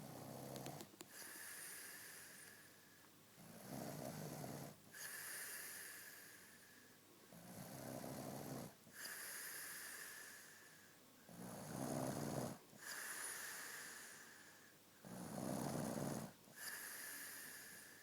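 A man snoring in his sleep in a steady cycle of about four seconds. Each cycle is a low, rattling snore followed by a hissing breath with a thin whistle in it, five times over.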